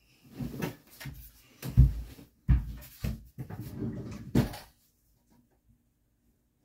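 A run of dull thumps and knocks, several in quick succession, stopping about two-thirds of the way in.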